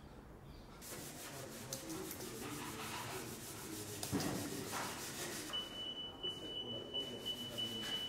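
Installation work: scraping and rubbing with scattered knocks and clicks. About two-thirds of the way through, a steady high-pitched whine starts and keeps going.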